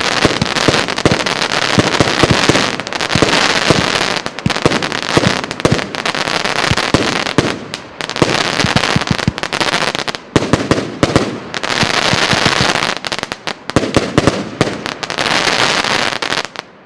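A 100-shot, 25 mm calibre firework cake firing: rapid launch shots and dense crackling bursts coming in waves, cutting off just before the end.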